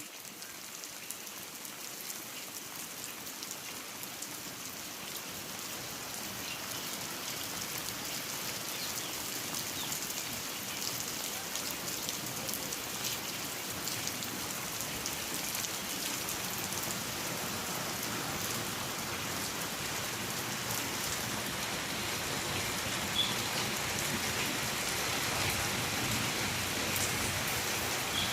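Rain falling: a steady hiss with many individual drops ticking, growing gradually heavier and louder throughout.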